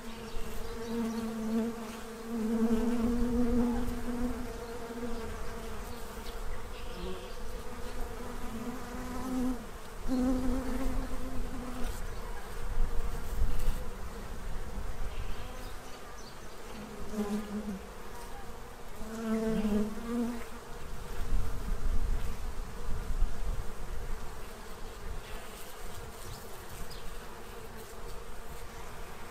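Honey bees buzzing around a crowded feeding tray: a steady hum of many bees, with single bees' buzz swelling and fading as they fly close past, several times over. A low rumble comes and goes underneath.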